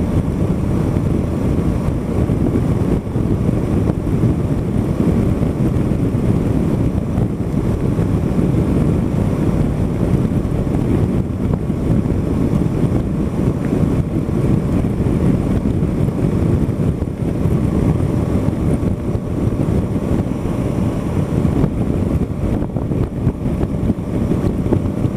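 Steady wind rush over the camera's microphone at highway speed, about 108 km/h on a Honda Africa Twin CRF1000L. Under it is a faint, even hum from the bike's parallel-twin engine running at a constant cruise.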